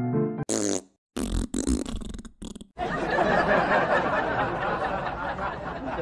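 Prank wet-fart sound effect: a short burst about half a second in, then a longer wet, sputtering run of bursts lasting about a second and a half. Then a dense, steady noise for the rest.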